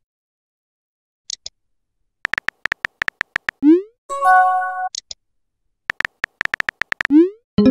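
Texting-app sound effects: a run of rapid keyboard-tap clicks as a message is typed, then a short rising swoop as it is sent, and a brief chime for an incoming message about four seconds in. Another run of taps and a second rising swoop come near the end, with a short blip about a second in.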